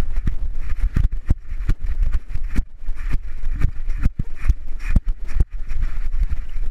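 Thumps and knocks from a GoPro strapped to a running dog, the camera jolted with each bound, coming irregularly about twice a second over a low rumble of wind and movement.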